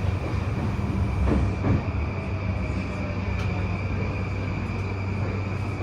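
Interior running noise of an E235-1000 series electric train: a steady wheel-and-rail rumble with a constant high hum, and a couple of brief knocks about a second and a half in.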